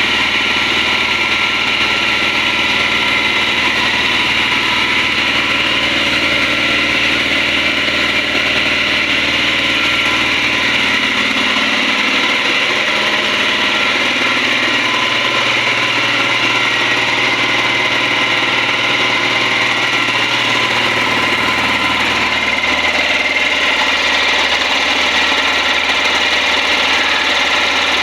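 Yanmar C220 marine air compressor running steadily on test, a continuous mechanical running sound.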